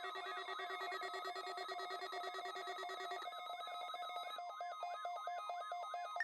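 Weather radio receivers sounding their alert alarms, set off by the warning alarm tone of a weekly alarm test. Several electronic alarms overlap: warbling chirps repeating a bit over two times a second, a pulsing beep and a steady tone. One of them cuts out about three seconds in.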